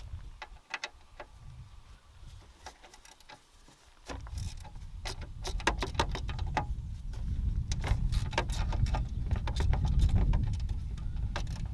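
Irregular metallic clicks and knocks of hand tools and car parts being handled during engine-bay dismantling. From about four seconds in they sit over a louder low rumble.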